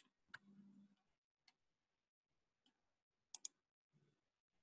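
Near silence broken by a handful of faint computer mouse clicks about a second apart, with a quick double click about three and a half seconds in.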